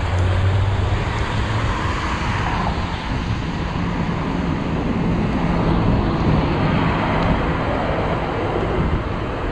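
Steady wind buffeting the microphone of a moving bicycle, mixed with the hiss of tyres on a rain-soaked street and passing traffic. A low rumble sounds for about the first two seconds.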